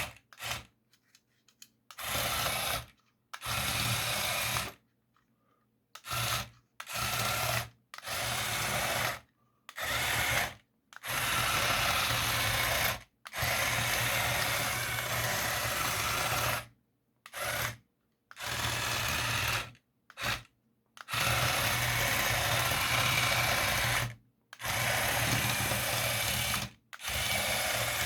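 Small RC tracked vehicle's two metal-geared TT gear motors whining and its print-in-place plastic tracks clattering on a hard tabletop: a racket. It comes in repeated start-stop bursts, some under a second and some several seconds long, as the vehicle is driven in spurts.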